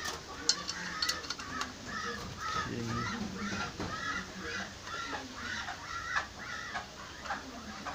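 A bird calling over and over in short arched notes, about two a second, with a few sharp clicks near the start.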